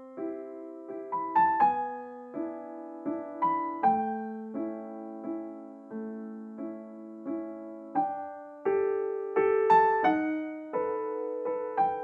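Background piano music: soft notes and chords struck at an even, unhurried pace, each fading before the next.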